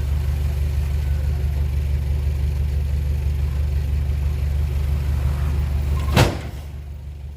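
Heavy diesel engine running steadily with a low drone, then a sharp knock about six seconds in, after which the engine sound drops quieter.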